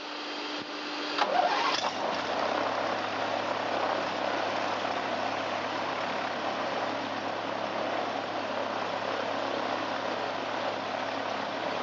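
Jabiru 3300 six-cylinder aircraft engine running at low power, with its propeller turning. The sound swells between one and two seconds in, then runs steadily.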